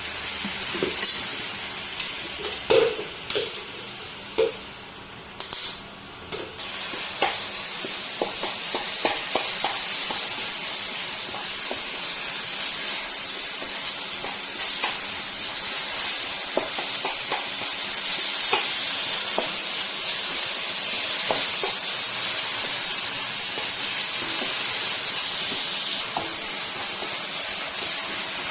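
A few knocks of pots and utensils, then about six seconds in food starts sizzling in a hot pan and keeps sizzling steadily, with light clicks of a utensil over it.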